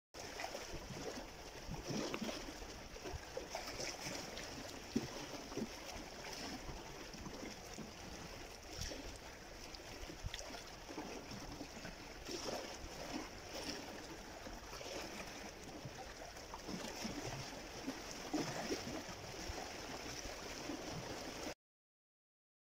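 Small sea waves lapping and splashing against shore rocks, an irregular wash of water noise that cuts off suddenly near the end.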